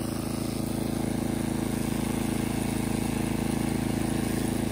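Gas snow blower engine running steadily at constant speed.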